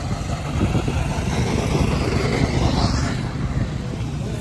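Go-kart engines running as karts lap the track, a steady low drone that grows a little louder through the middle.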